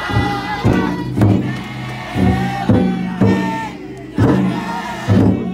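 Futon daiko float's big taiko drum beaten in a steady rhythm, about two strokes a second, under a crowd of carriers chanting together in long held calls.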